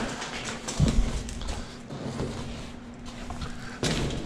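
A person crawling through a corrugated escape shaft: knee pads and hands knocking and clicking on the corrugated surface, with a heavy thump about a second in and lighter knocks and scrapes after it.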